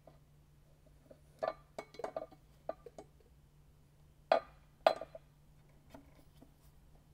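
Aluminium transmission adapter plate clinking against the engine block and dowel pins as it is worked into place: a scatter of light metallic clinks, then two sharper knocks about half a second apart past the middle.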